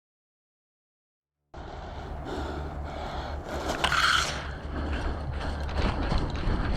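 Dead silence for about a second and a half, then outdoor field audio cuts in: a low rumble of wind on the microphone with rustling and scraping of gear as the player moves, and scattered clicks and knocks toward the end.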